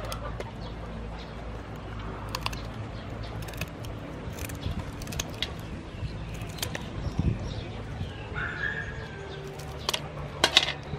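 Kitchen scissors snipping through mantis shrimp shells: a run of sharp clicks and snips, loudest in a quick cluster near the end. A bird calls briefly in the background about eight seconds in, over a low steady hum.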